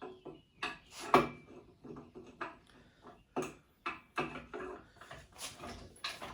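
Irregular knocks, clicks and scrapes of tools and parts being handled at a workbench, the loudest knock about a second in.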